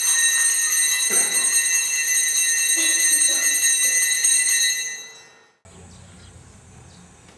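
Bright, bell-like ringing of several high tones held steady for about five seconds, then fading out. After a brief gap, a faint steady background with a low hum follows.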